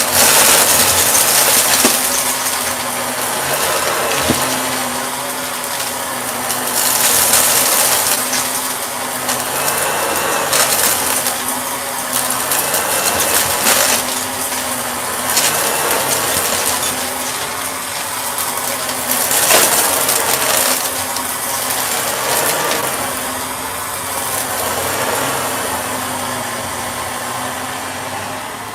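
Shark vacuum cleaner running, its hiss and motor hum swelling and easing every few seconds as it is pushed back and forth, with small rattling clicks of debris being sucked up.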